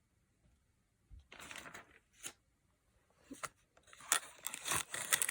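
Packaging crinkling and tearing as a silicone straw set is unwrapped, in short bursts that come more often and louder toward the end.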